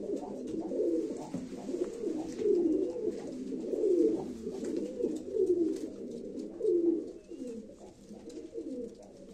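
Domestic pigeons (Turkish play pigeons) cooing, a run of low rolling coos repeated every second or so that fade after about seven seconds. The cooing is typical of a male's courtship display to the hen beside him.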